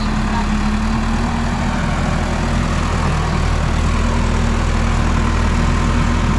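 A farm tractor's diesel engine running steadily as the tractor works soil.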